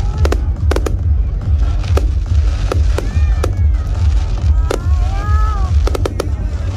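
Fireworks bursting: a string of sharp bangs at irregular intervals, some coming in quick clusters near the end, over a steady low rumble.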